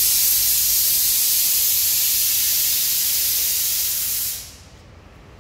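A loud, steady hiss that fades out about four seconds in.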